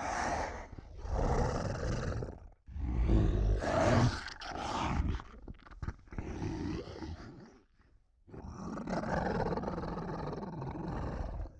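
Zilla Jr. monster roar sound effects: a run of five or six separate roars and growls with a deep rumble under them, and a short pause about eight seconds in.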